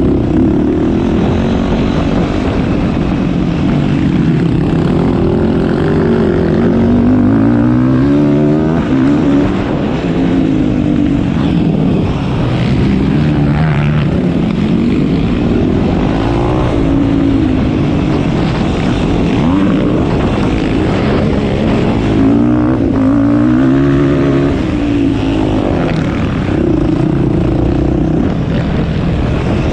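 Yamaha YFZ450R quad's single-cylinder four-stroke engine being ridden hard, revving up and dropping back over and over, its pitch rising and falling with the throttle.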